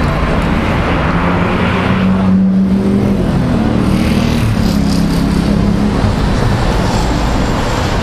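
City street traffic: cars passing on a multi-lane road, a steady rumble with an engine drone swelling over it about two seconds in and again a little later.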